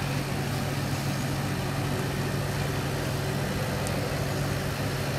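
A steady low mechanical hum, even in pitch and level throughout.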